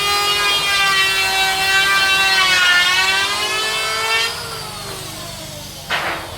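A handheld electric woodworking power tool's motor whining at full speed, dipping in pitch for a moment as it takes load, then switched off and winding down with falling pitch. A short knock near the end.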